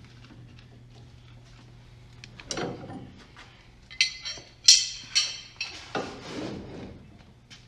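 Metal tools and parts clinking and knocking while working on a steering rack's inner tie rods, with a cluster of sharp, bright clinks about halfway through. A faint steady low hum runs underneath.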